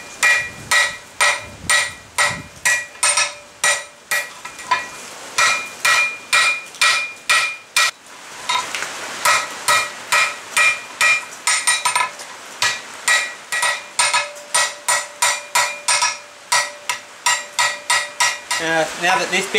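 Hand hammer striking red-hot flat steel bar on an anvil in a steady rhythm, about two to three blows a second, each blow ringing. There is a short pause about eight seconds in. The blows are drawing the bar down to about half its thickness.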